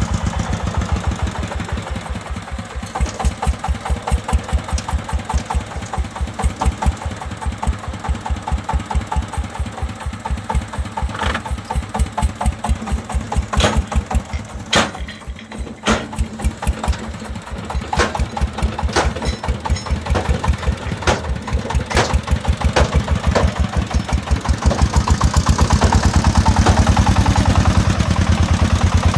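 Single-cylinder diesel engine of a three-wheeled công nông dump truck chugging in a steady fast beat while the tipped bed unloads soil. A few sharp knocks stand out in the middle, and the engine grows louder in the last few seconds as the truck moves off.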